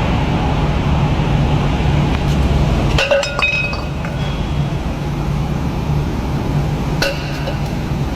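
Compressor shell cutting machine running with a steady low hum, with sharp metallic clinks about three seconds in and again near the end.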